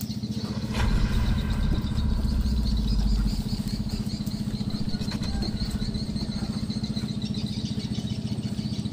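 A small engine running steadily at idle, with an even rapid pulse, and a deeper rumble swelling over it for the first three seconds or so.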